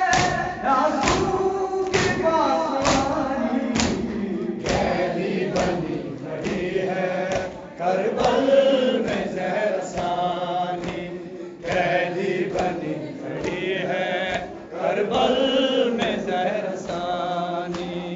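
Men chanting an Urdu nauha (Shia lament) together, a lead voice with a group answering, while hands beat on chests (matam) in a steady rhythm, each thud keeping time with the chant.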